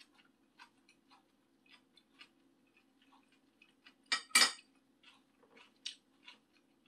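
A metal spoon clatters against a dish twice in quick succession, loudly, about four seconds in, amid small clicks of eating and utensils over a low steady hum.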